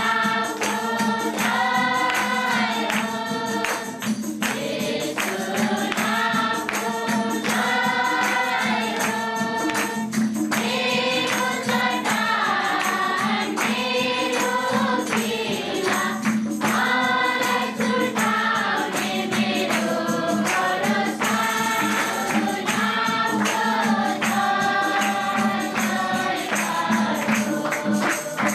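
A congregation sings a Nepali worship chorus together, with hand clapping keeping a steady beat.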